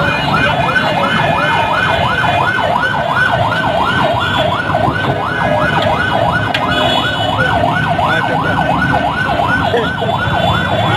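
Electronic siren yelping in fast rising-and-falling sweeps, about four a second, over the hubbub of a busy street.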